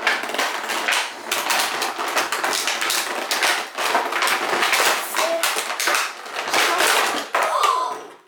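Plastic and cardboard toy packaging crackling and rattling as the toy is pulled and worked loose from its box: a dense, continuous run of clicks and crinkles.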